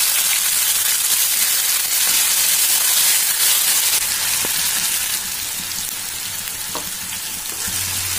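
Ginger, garlic, cumin and black pepper paste with whole spices sizzling in hot oil in a kadhai while being stirred with a spatula, with a few faint clicks. The sizzle eases a little about five seconds in.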